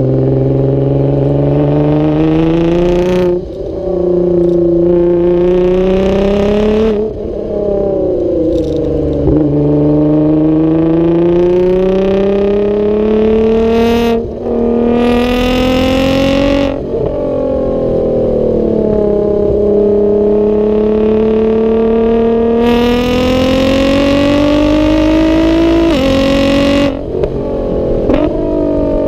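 Nissan R35 GT-R's twin-turbo V6, with a full HKS exhaust, pulling hard on track. The engine note climbs in pitch, then drops sharply at each gear change, over and over, with brief dips at the shifts.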